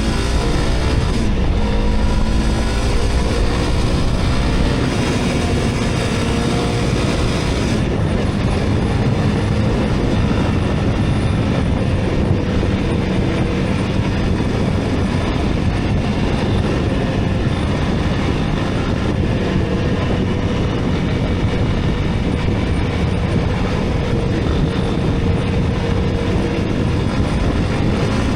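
Honda CRF300L Rally's single-cylinder engine running steadily, heating a freshly wrapped, still-wet exhaust header to burn it off.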